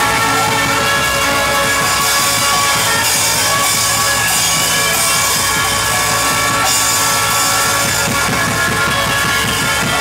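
Live reggae orchestra playing: held horn lines over electric guitar and drum kit at a steady beat.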